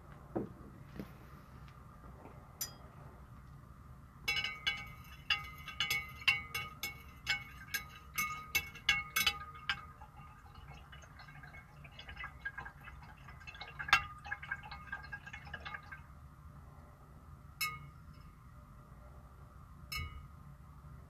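Glass stirring rod clinking against the wall of a 2000 ml glass beaker while stirring sodium metabisulfite into a gold-bearing solution. A quick run of ringing clinks, several a second, then a second softer run and a couple of single clinks near the end.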